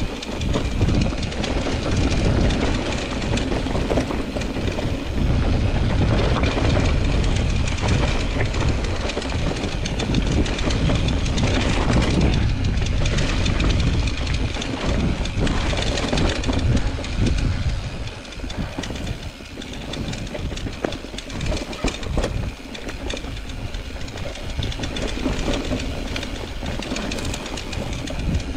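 Mountain bike being ridden over rough ground: continuous rattling and knocking of the bike over bumps and rocks, over a heavy low rumble. It eases somewhat past the middle.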